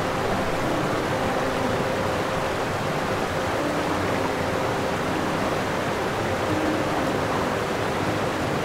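Steady rushing underwater noise, with faint low tones coming and going.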